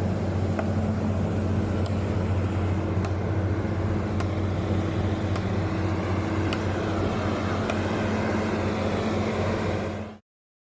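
Reverse circulation drilling rig running under power: a steady, loud engine and compressor drone with a deep hum, and a faint tick about once a second. The sound cuts off abruptly near the end.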